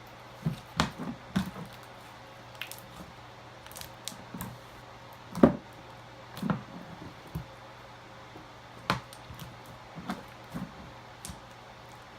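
Slime being squeezed and worked by hand: a series of irregular short squishes and clicks, the loudest about halfway through.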